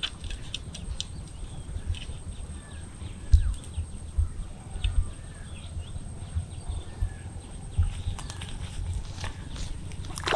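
Quiet outdoor ambience: faint bird chirps, a faint steady high tone, and scattered low thumps, the loudest about three seconds in. A plastic bag rustles and crackles near the end.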